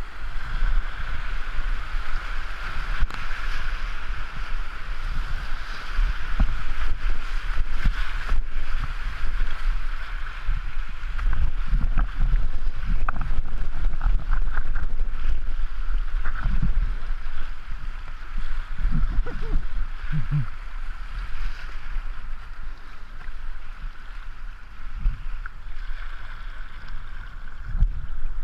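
Rushing river water through a small rapid, heard from a kayak's deck, with wind buffeting the microphone in gusts and occasional splashes.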